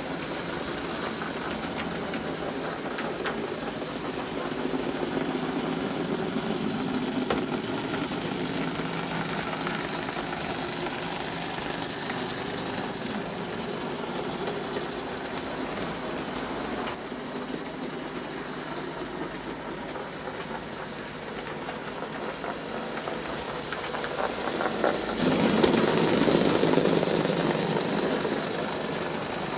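OO gauge model trains running on the track, a steady whirr of small electric motors and wheels on rail. The sound changes abruptly about 17 and 25 seconds in and is loudest near the end, as a green diesel locomotive passes close by.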